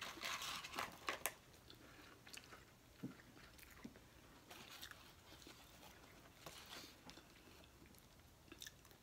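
Close-miked eating of McDonald's french fries: loud crunchy chewing in the first second or so, then quieter chewing with occasional soft mouth clicks.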